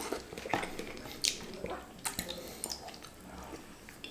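Close-miked mouth sounds of a man eating noodles in soup: chewing and slurping mee celup, with a few short irregular wet clicks and smacks.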